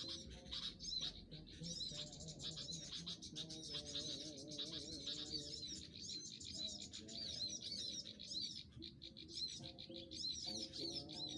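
Many small birds chirping and twittering densely and without pause, in quick high-pitched notes.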